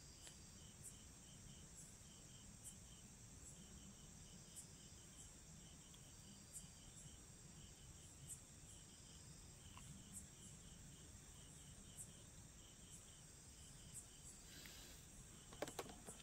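Near silence outdoors, with faint insect chirping: short high notes in quick groups of about three, repeating over and over. A few brief knocks sound near the end.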